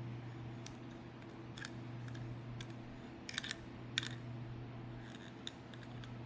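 Irregular sharp clicks and snips from handling a die-cast toy car and its plastic blister packaging, the loudest a quick cluster a little past the middle, over a steady low hum.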